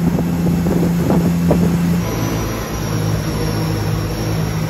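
Jet boat engine running steadily at speed on the water, with wind on the microphone. About two seconds in, the engine note changes and a thin high whine joins it.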